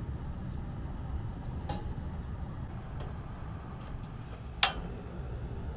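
Captain Stag portable gas stove being lit: a few light ticks, then the gas hissing on, a single sharp click of the igniter near the end, and the burner hissing on after it.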